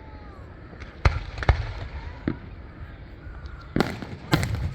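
Aerial fireworks bursting: a string of about five sharp bangs, the two loudest close together near the end.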